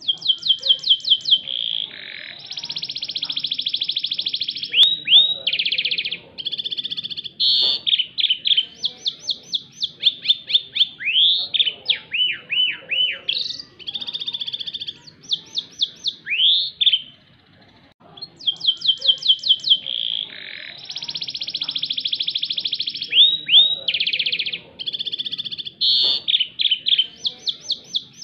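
White canary singing a loud song of rapid trills, held buzzy rolls and repeated upward-sweeping notes. The song pauses for about a second past the middle, then starts again.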